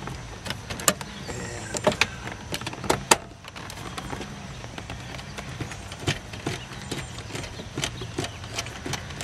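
Small irregular clicks and ticks from a 9/32-inch nut driver turning out the instrument-panel mounting screws in a C4 Corvette's dash, sharpest in the first three seconds. A steady low hum runs underneath.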